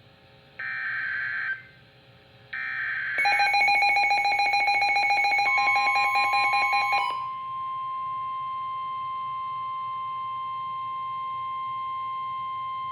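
Emergency Alert System SAME header: two screeching digital data bursts about a second long, a second apart. Then comes a loud, harsh, rapidly pulsing two-tone attention signal for about four seconds. A steady single NWS warning tone near 1 kHz cuts in over its end and holds.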